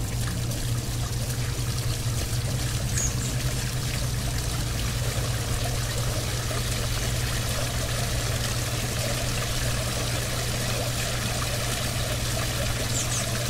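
Water from an artificial-rock pool waterfall pouring in several thin streams and splashing steadily into the pool, with a steady low hum underneath.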